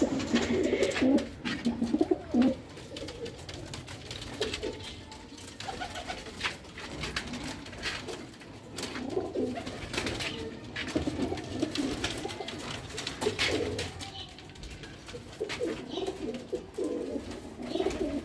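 Domestic pigeons cooing, low warbling coos coming in repeated bouts every few seconds, with scattered sharp clicks in between.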